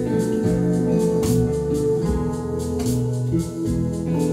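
Electric keyboard holding sustained, organ-like chords, with an acoustic guitar strummed about once a second: an instrumental passage between sung lines.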